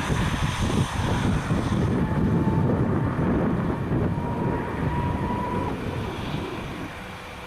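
Diesel-electric freight train led by a GE ES44C4 locomotive running past, a rough, gusty low rumble mixed with wind buffeting the microphone. A faint thin steady whine sounds for about three seconds in the middle.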